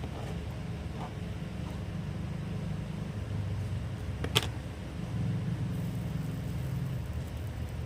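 A steady low rumble, with one sharp click a little after four seconds in.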